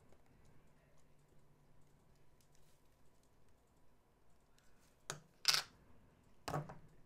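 Faint tapping and clicking of a wood-mounted rubber stamp being dabbed on an ink pad and pressed onto a spiral notepad on a wooden desk. There are a few sharper knocks about five seconds in and again about a second later.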